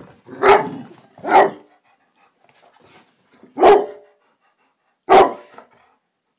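Black labrador barking: four loud single barks, two close together at the start, then two more spaced further apart.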